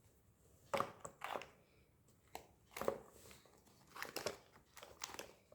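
Plastic confectionery packets crinkling as they are handled and set in place, in a string of short, sharp rustles.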